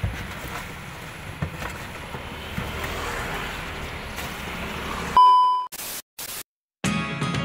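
Low engine rumble and outdoor noise with a few faint scrapes. About five seconds in it is cut off by a loud steady test-tone beep and bursts of static from a TV colour-bars glitch transition, then after a brief silence guitar music starts.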